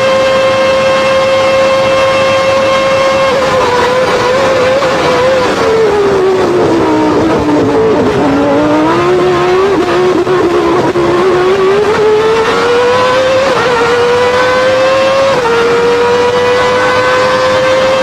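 McLaren-Honda Formula 1 engine heard onboard at high revs. The note holds steady for a few seconds, sinks smoothly to about half its pitch as the car slows through a corner, then climbs back under power. Near the end there is an upshift, a sudden small drop in pitch, after which it rises again.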